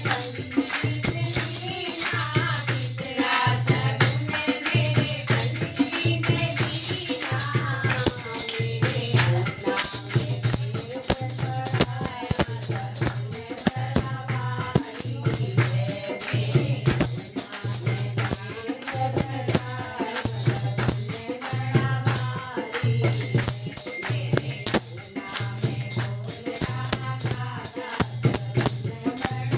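Women singing a Hindi shagun geet (wedding folk song) together, with hand clapping and a dholak drum keeping a steady beat; a low drum stroke falls about every second and a half.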